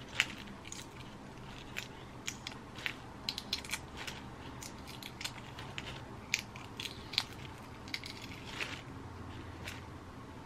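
Shell of a hard-boiled egg being cracked and picked off by hand: a scatter of small, irregular crackling clicks over a faint low hum.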